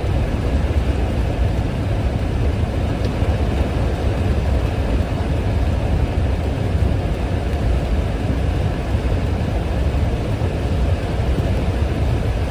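Steady roar of torrential typhoon rain and wind, with a deep rumble of wind on the microphone, as cars plough through floodwater and throw up spray from their tyres.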